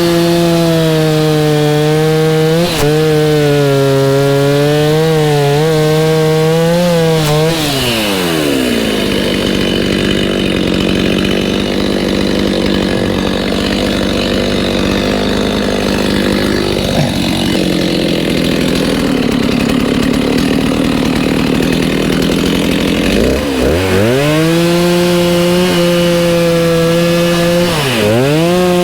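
Chainsaw at full throttle cutting into a thick walnut log, its pitch wavering as the chain bites. About eight seconds in it drops back to a lower, steady running speed. It revs up again about twenty-three seconds in and sags briefly under load near the end.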